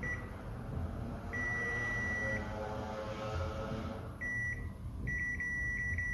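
Multimeter continuity beeper sounding a steady high tone for about a second, then short broken beeps as the probes make and lose contact, signalling that the probed points are connected.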